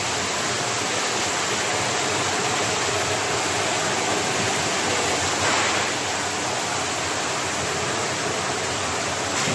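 Water rushing and churning steadily in a vortex vegetable washing machine line, with a slightly louder swell about halfway through.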